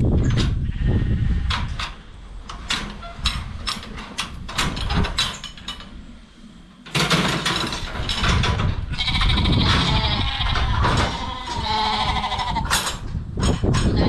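Sharp clicks and clanks from the steel chute's head gate being worked, then Shetland sheep bleating repeatedly from about halfway, several wavering calls overlapping.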